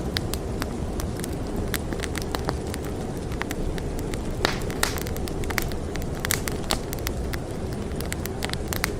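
Wood fire crackling in a fireplace, with frequent sharp pops, two of the strongest about halfway through, over a steady low rumble of storm wind.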